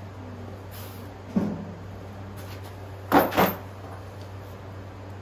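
Two knocks over a steady low hum: a single knock with a short ringing tail, then a louder double knock about two seconds later.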